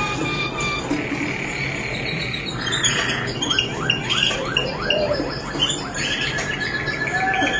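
Malinois Waterslager canary singing a chain of song tours: a fast steady trill, then a run of falling strokes at about five a second with a brief low note, then a long held note near the end.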